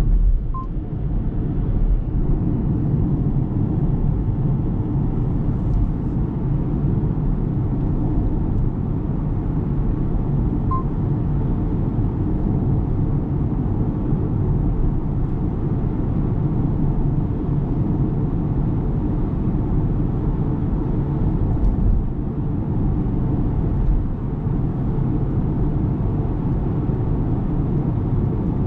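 Steady low road and tyre rumble from a moving 2023 Ora Good Cat electric car, with no engine note.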